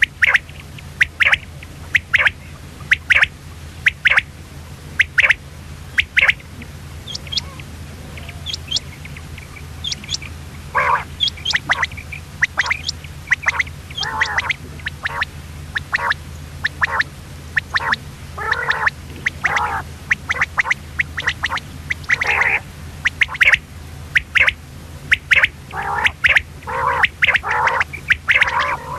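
Common quail calling: short sharp calls about once a second, a lull, then quicker, denser runs of calls from about eleven seconds in. A steady low hum lies underneath.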